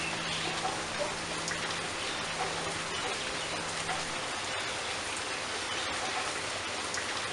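Steady rain falling: an even hiss with scattered drop ticks. A faint low held tone fades out about four seconds in.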